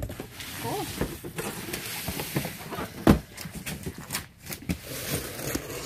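Cardboard boxes being handled and shifted on a table: rustling and scraping, with a single thump about three seconds in and a few sharp clicks shortly after it.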